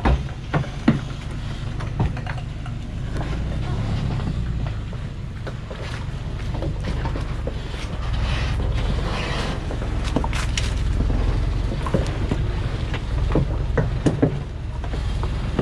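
Diesel engine of a Thaco Forland truck loaded with about 18 tons of acacia logs, running with a steady low rumble as it crawls slowly up a rocky forest track. Scattered knocks and clicks of stones run through it.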